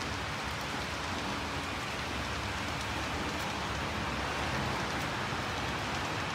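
Model freight train running along the layout track, giving a steady, even rushing noise.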